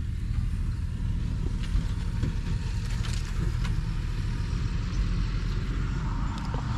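Wind buffeting the microphone: a low, uneven rumble with a few faint ticks.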